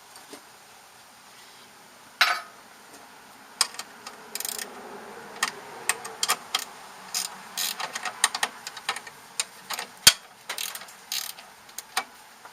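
Irregular small clicks, knocks and short rattles of hands working wire connectors loose and taking out the old fuel gauge, with one sharper click about ten seconds in.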